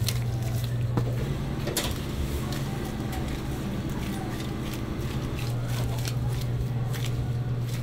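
Kitchen room tone: a steady low hum with a few soft knocks and clicks, and faint voices behind.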